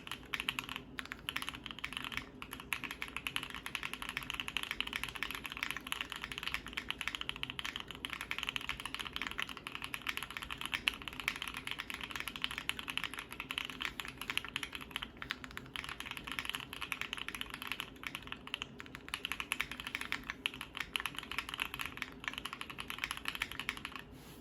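Continuous rapid typing on a Keychron Q2 mechanical keyboard with lubed and filmed NK Dry Black linear switches on a polycarbonate plate: a dense stream of keystrokes that stops near the end.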